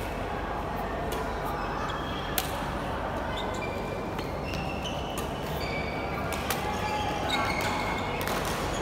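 Badminton rally: rackets striking the shuttlecock in sharp cracks a couple of seconds apart, with court shoes squeaking on the floor between the hits.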